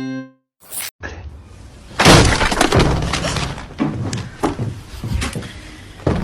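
A loud sudden crash of something breaking about two seconds in, followed by several smaller clattering hits over the next few seconds and another sharp knock near the end.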